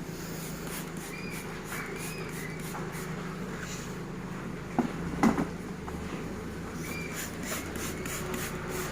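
Top-load washing machine running with a steady motor hum, with two short knocks a half second apart near the middle.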